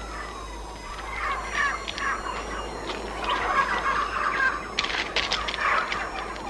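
A flock of domestic turkeys calling, many short overlapping yelps and squawks that grow busier from about a second in.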